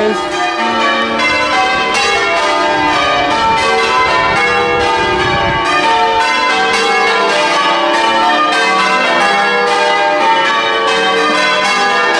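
Church bells being change-rung: a continuous sequence of overlapping bell strokes, each ringing on with its own steady pitch.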